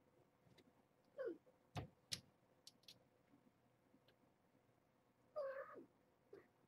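A cat meowing: a short falling mew about a second in, then a longer mew that drops in pitch at its end and a brief one right after it near the end. Two sharp clicks come in between.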